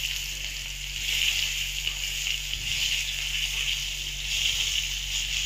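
Freshly added sliced onions sizzling steadily in hot oil with whole spices in a metal wok, stirred with a spatula.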